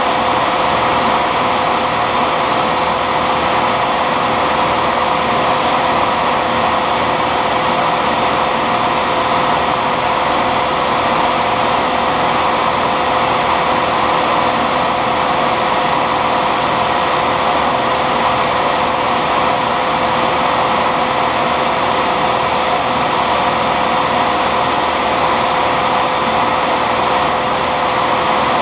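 Shopsmith lathe running steadily, its motor and spindle giving a constant whine over a broad whooshing noise, with no change in speed, while a graphite rod is turned and shaped against a hand-held tool.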